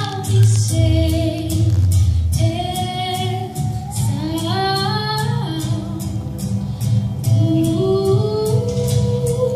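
A young female singer singing a slow melody into a microphone, her voice gliding between long held notes, over instrumental accompaniment with a steady low bass and a light regular tick.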